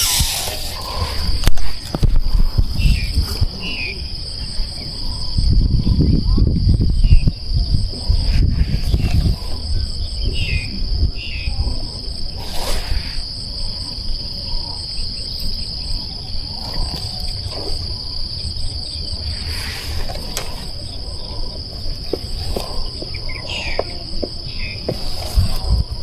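Insects chirring steadily in one continuous high trill, with a few short bird chirps. There is a stretch of low rumble about five to eight seconds in.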